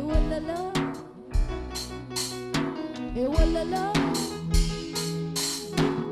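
Live worship band music: a drum kit beats out a rhythm with snare and kick hits over a steady bass, under a melody line that slides up and down in pitch.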